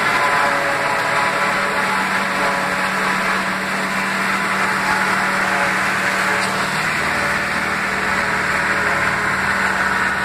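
John Deere 2755 tractor's diesel engine running steadily under load, with the PTO-driven forage harvester chopping dried corn stalks, a continuous drone and whir.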